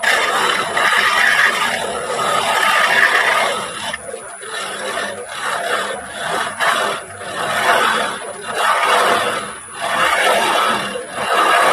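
Turning gouge cutting into the end grain of a wooden blank spinning on a wood lathe, hollowing the candle cup: a continuous scraping hiss of the cut that eases off briefly a few times as the tool is backed off.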